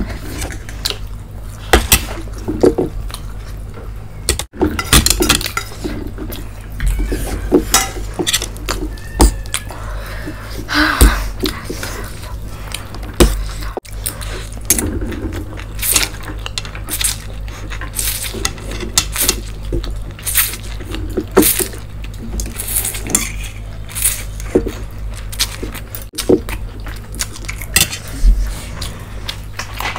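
A fork clinking and scraping against stainless steel plates in irregular taps, with close-up sounds of noodles being mixed by hand and eaten.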